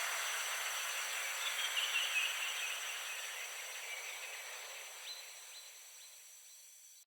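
A steady high hiss with faint high steady tones, fading gradually to near silence.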